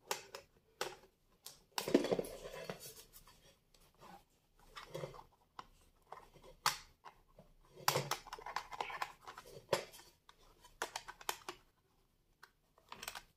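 Hands handling the plastic underside of a Tefal digital bathroom scale: a string of plastic clicks and scraping as its battery cover is worked open and the scale is turned on a tiled floor.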